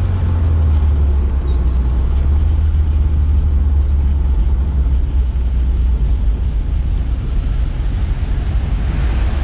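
1979 Alfa Romeo Alfetta's twin-cam four-cylinder engine heard from inside the cabin as a steady low drone with road noise, easing off about halfway through as the car slows toward a toll booth.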